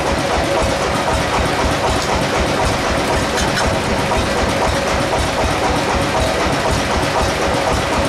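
Bandsaw mill's engine running steadily between cuts, a constant drone with a fast low pulsing and a steady hum over it.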